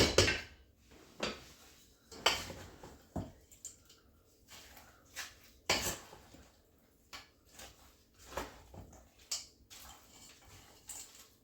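A utensil scraping and knocking against a mixing bowl while stirring a thick, creamy chicken mixture, in irregular strokes about a second apart.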